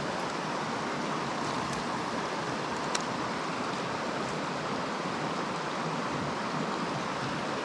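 Small mountain trout stream running over rocks, a steady rushing of water, with a single short click about three seconds in.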